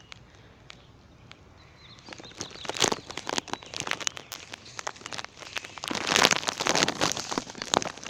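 Dense rustling and crackling made of many small clicks, starting about two seconds in. Before that there are only a few isolated clicks and faint high chirps.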